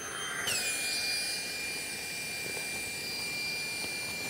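Small electric air pump whining steadily as it inflates an Exped Ultra 3R Duo sleeping pad through its valve. The pitch drops a little about half a second in, then holds.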